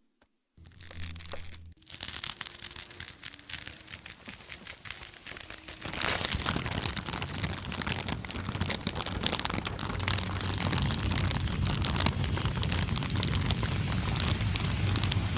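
Foley match sound effect: a short scrape about half a second in, faint crackling, then about six seconds in a sudden flare that settles into a steady crackling burn.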